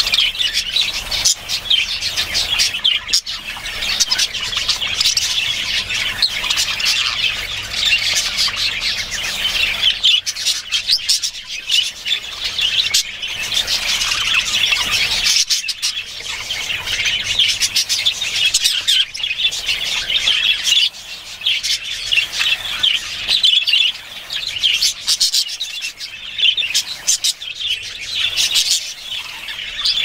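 Budgerigar chattering and warbling without a break, a busy stream of chirps, squeaks and harsher squawks.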